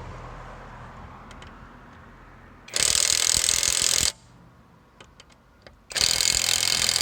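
Cheap cordless brushless impact wrench hammering in two bursts of about a second and a half each, on a wheel nut it lacks the power to undo.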